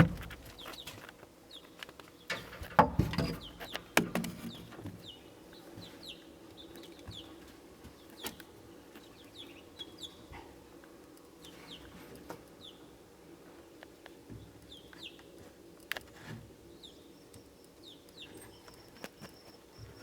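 A few knocks and scrapes in the first few seconds as the camera is pushed along inside the barn wall, then many short, high chirps from birds, one at a time and scattered, over a steady low hum. A thin, steady high insect-like tone joins near the end.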